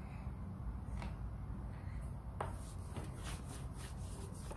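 Wax crayon scribbling on a folded paper airplane: faint, uneven scratchy strokes of colouring, with a low steady hum underneath.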